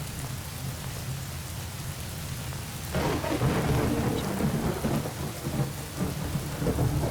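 Steady rain falling, then about three seconds in a thunderclap breaks and rumbles on through the rest.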